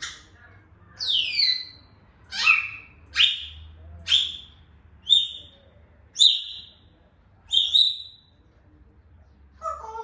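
African grey parrot whistling a string of about nine short calls, roughly one a second. Each is a quick downward slide that settles on a high held note, and the last one, near the end, is lower and shorter.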